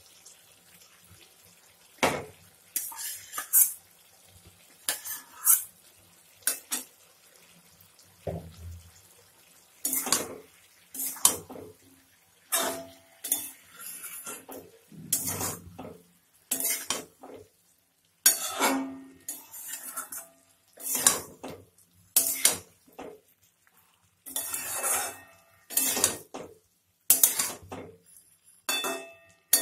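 A cooking utensil stirring food in a pan, making irregular scrapes and knocks against the pan, some with a short ring. Scrambled egg pieces are being mixed into the potato and pointed-gourd curry.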